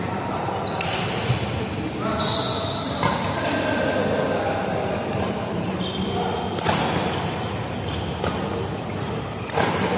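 Badminton rackets striking a shuttlecock during a doubles rally: sharp hits about a second or so apart, over a steady din of voices in a large echoing hall.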